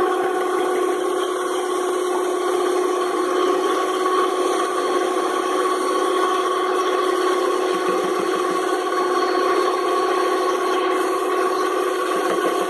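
Electric stand mixer's motor running at one steady speed with a constant whine, its twin beaters churning thick cookie batter as sugar is added.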